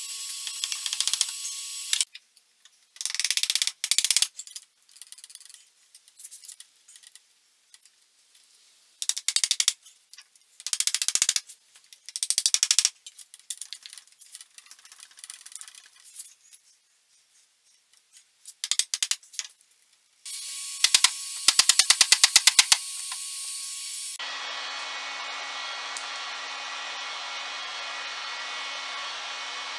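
Bursts of rapid tapping and rattling as the wooden joints of a carved oak chair are knocked and worked loose, with quiet gaps between them. Near the end a steady hum takes over.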